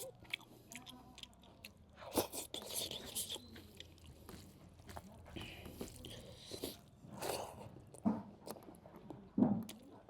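Close-miked mukbang eating: a person biting, chewing and crunching food with wet mouth sounds, in irregular bursts.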